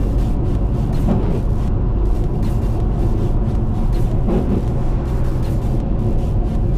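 Steady low rumble of a car moving along the highway, heard from inside, with frequent irregular ticks of ice pellets and snow hitting the roof and windshield.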